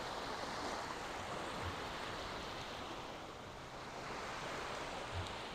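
Small waves breaking and washing up a sandy beach: a steady rush of surf.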